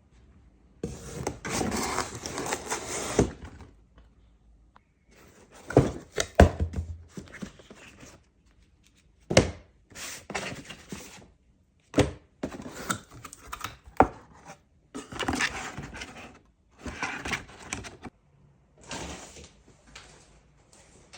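Unpacking noises: packaging rustled and torn in repeated bursts, with several sharp knocks and thunks as parts are handled.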